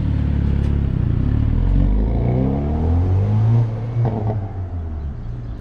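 Hyundai Veloster N's turbocharged four-cylinder engine revving: the pitch climbs from about two seconds in, then falls away with a short crackle just after three and a half seconds.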